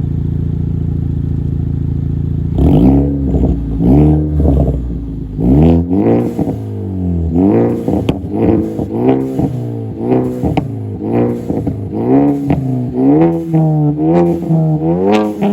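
Ford Focus ST's turbocharged engine idling, then revved repeatedly from about two and a half seconds in, each rev rising and falling back, with pops and crackles from the exhaust as the revs drop. The exhaust is a catless downpipe and an MBRP system with a muffler delete, run with a pop tune.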